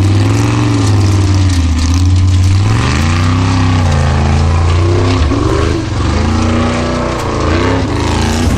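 Formula Offroad buggy engine revving hard under load, its pitch repeatedly surging up and dropping away.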